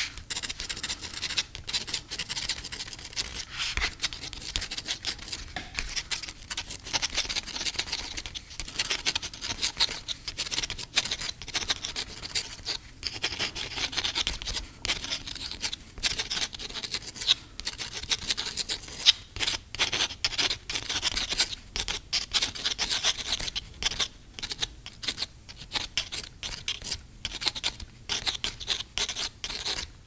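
A pen writing on paper: a fast run of short scratchy strokes, broken by brief pauses.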